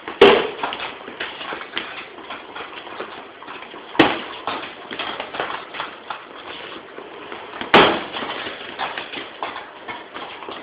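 Punches landing on a training pad: three hard smacks about four seconds apart, with lighter taps and shuffling between them.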